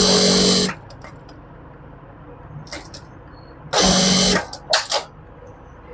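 Electric sewing machine running in two short bursts, about a second and then about half a second, while top-stitching along the edge of a cuff. A few light clicks of handling follow the second burst.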